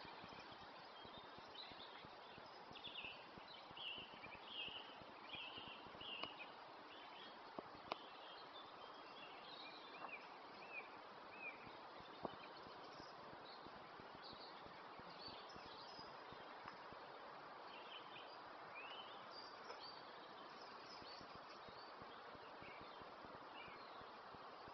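Faint winter dawn chorus of songbirds, a song thrush among them: short, repeated song phrases, busiest in the first half and sparser later, over a steady background hiss.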